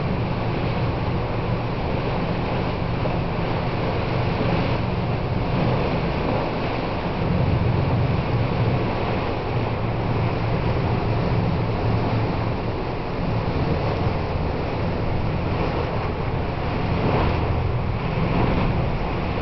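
Steady wind noise on the microphone over the wash of the sea, with a constant low rumble underneath.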